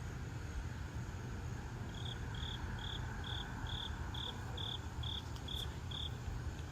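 A run of about ten short, high-pitched insect chirps in an even rhythm, a little over two a second, starting about two seconds in, over a steady low rumble.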